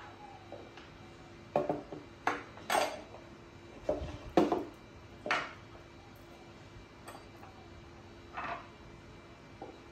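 Plastic cups and a kitchen utensil being handled and set down on a table: a string of separate knocks and clinks, about seven, the loudest about four and a half seconds in, with a faint steady hum underneath.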